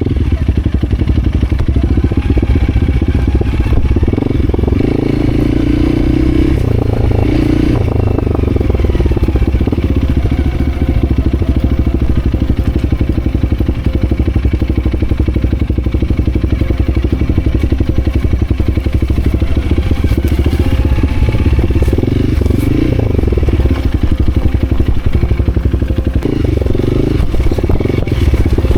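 A vehicle engine running hard and steadily, its pitch rising and falling with the throttle a few times, with some clatter.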